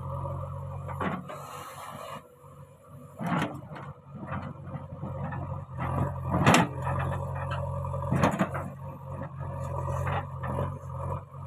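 JCB 3DX backhoe loader's diesel engine running steadily under work, with several sharp knocks over it, the loudest about six and a half seconds in.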